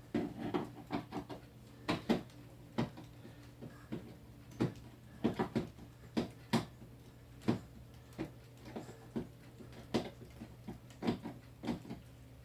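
Irregular clicks, taps and knocks of hands and a screwdriver working on the plastic case of an electronic keyboard being taken apart, over a steady low hum.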